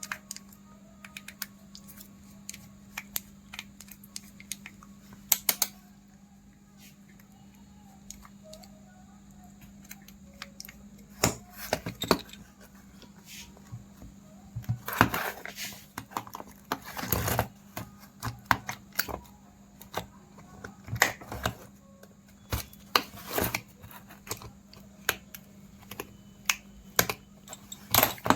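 Irregular small clicks and taps of repair tools working on a feature phone's plastic housing and internal parts, denser in the second half, over a faint steady hum.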